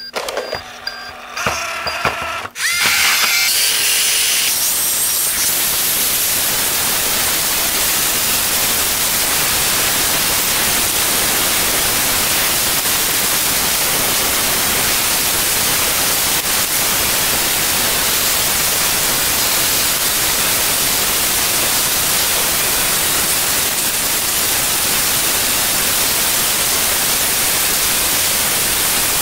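Roomba 610 robot vacuum starting a clean: a few beeps and its motors spinning up, then about two and a half seconds in a loud, steady, hiss-like whir from its vacuum fan and brushes that carries on unchanged.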